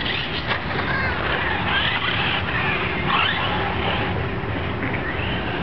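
RC cars racing on a dirt track, their motors revving up and down over a steady rush of noise.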